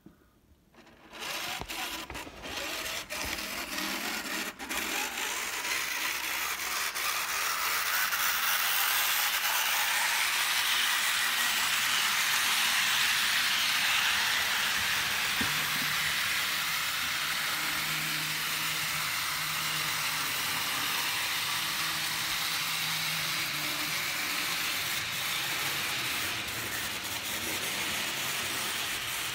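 H0-scale Jouef model of an SNCF 150 X steam locomotive running on DC, its small electric motor whirring steadily and its wheels rolling on the track as it pulls the coaches. The sound comes up about a second in, with a few clicks over the next few seconds.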